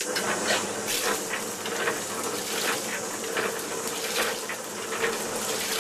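MacEwans LBG100 piston bore pump switching on under its electric motor, running with a steady hum while water gushes out of the open outlet in spurts about three a second, flushing rusty water after the leather washer replacement.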